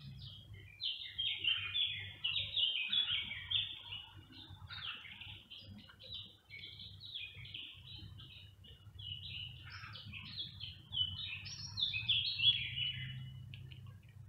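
Small birds chirping busily: a rapid, overlapping run of short high chirps that keeps going, over a faint low steady rumble.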